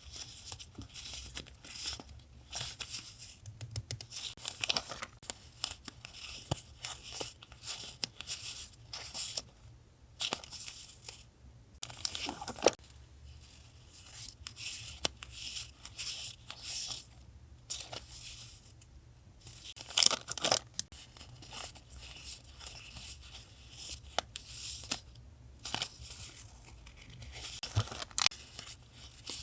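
Paper being handled, torn and crinkled by hand in irregular bursts of rustling and crackling, with sharp little clicks and louder rips now and then.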